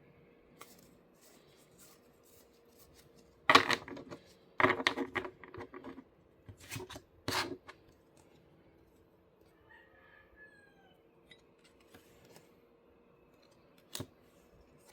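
Hands handling a deck of UNO cards and its packaging: several short bursts of clicking and rustling about three to seven seconds in, and a single click near the end, over a faint steady hum.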